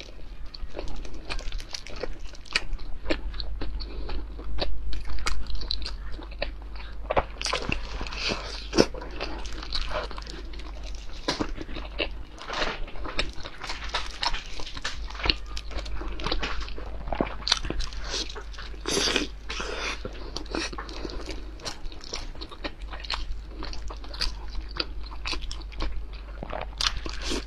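Close-miked eating sounds: a person chewing and biting into small steamed dumplings, with wet mouth smacks and irregular clicks of varying loudness.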